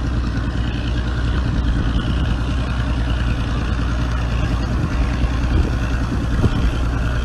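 Outboard motor idling with a steady low hum.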